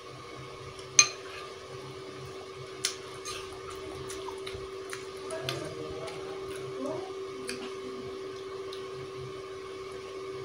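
A metal spoon clinking against a ceramic soup bowl several times, sharpest about a second in, with faint sounds of eating soup in between. A steady background hum runs underneath.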